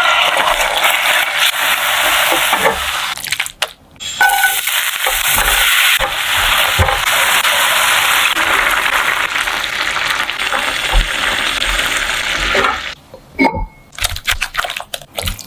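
Food sizzling in hot oil in a pan, a loud steady hiss with scattered crackles and clicks that breaks off briefly after about three and a half seconds and stops near the end.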